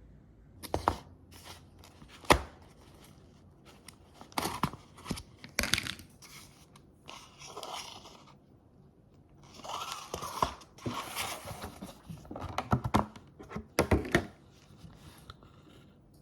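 Scattered sharp knocks and clicks with bursts of crinkling and tearing, the loudest knock a little over two seconds in: food or its packaging being handled.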